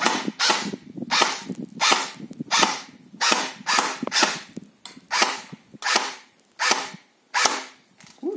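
A&K M4 airsoft electric rifle firing single shots: about a dozen sharp snaps in steady succession, a little under a second apart. The 13-year-old rifle still runs mostly on factory parts, with a newly fitted SP100 spring.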